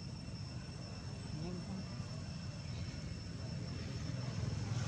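Outdoor background of a steady low rumble, like a distant engine, with faint voices and a thin steady high tone above it.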